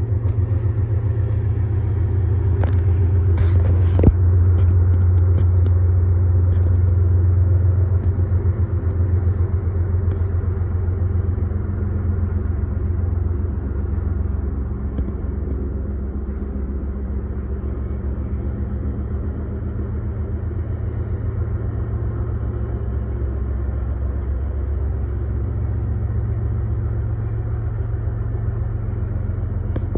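A freight train led by GE ES44AC diesel locomotives rumbling past with its grain hopper cars, a steady low rumble that eases slightly after about twelve seconds as the cars roll by. A few sharp clicks come about three to four seconds in.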